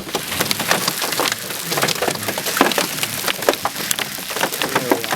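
Large hailstones, golf-ball size and bigger, clattering down in a dense, irregular run of hard knocks over the steady hiss of heavy rain.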